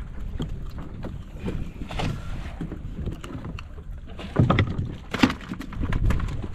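Knocks and a few heavy thumps from a fish being handled on the deck of a small fishing boat, loudest about four and a half and five seconds in. Beneath them is a steady low rumble of the boat and wind.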